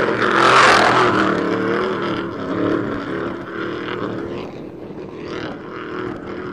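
Off-road race truck's engine running hard as the truck passes close by at speed, with a loud rush of noise as it goes past about half a second in, then fading steadily as it drives away.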